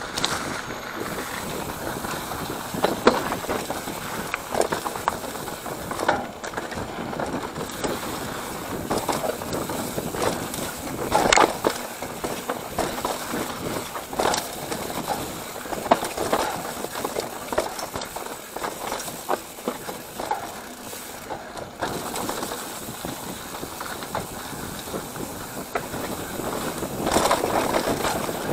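Mountain bike rattling over a rough dirt singletrack: a steady rush of tyre and bike noise broken by frequent sharp knocks and clatters as it rides over bumps.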